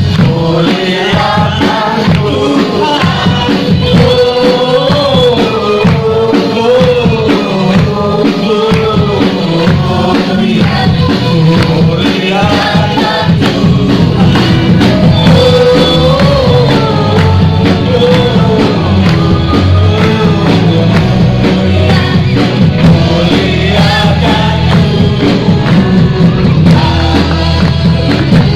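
Group of voices singing a gospel song together to band accompaniment with tambourine.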